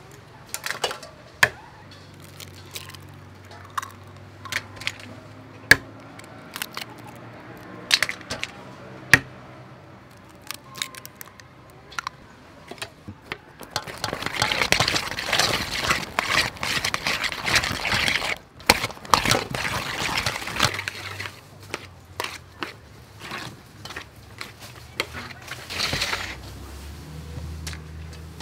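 Sharp separate clicks and taps as duck eggs are cracked open over a metal bowl, then about seven seconds of wet clattering as sliced sponge gourd is stirred with the raw eggs in the aluminium bowl, with a few more taps near the end.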